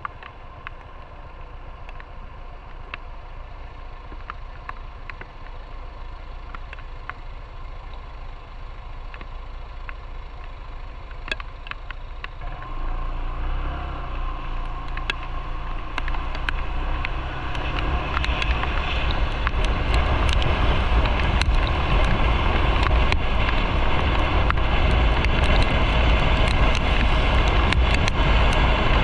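Motorcycle on the move, with road and wind noise on the microphone growing steadily louder as the bike picks up speed, with steps up about 12 and 18 seconds in.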